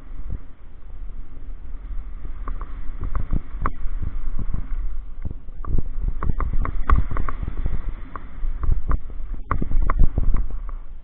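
Downhill mountain bike running fast over a rough dirt trail: steady rumble of tyres and wind on the mounted camera, broken by frequent irregular knocks and clatters as the bike hits bumps and rocks.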